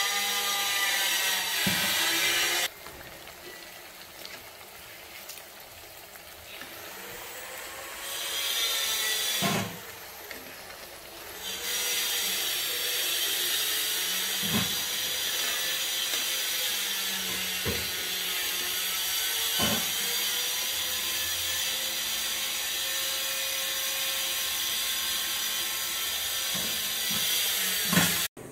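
Battered vegetable slices deep-frying in hot oil in a steel kadai: a steady loud sizzle, quieter for several seconds after about three seconds in, with a few sharp clinks of the slotted spoon against the pan.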